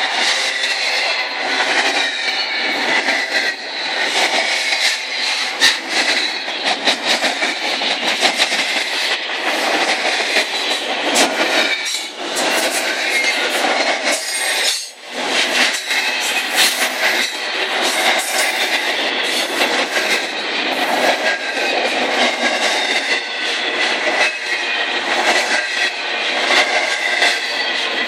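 Train cars rolling past close by, clattering and clicking over the rails, with a wavering high squeal of wheels on rail; the noise dips briefly about fifteen seconds in.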